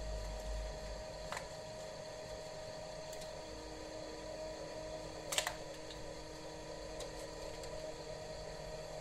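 A few sharp clicks and taps of small-scale work on a Samsung Galaxy Grand Prime (G530) phone as its screen is pried out of the frame, the loudest click about five and a half seconds in, over a steady low hum.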